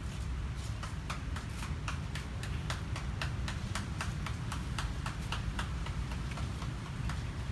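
An animal chewing crunchy food: quick sharp crunches, several a second, over a steady low rumble.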